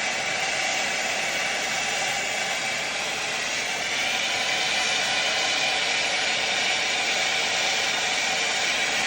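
Acetylene torch with a large tip burning steadily: a continuous hissing rush of flame as a 3-inch copper pipe joint is heated to brazing temperature.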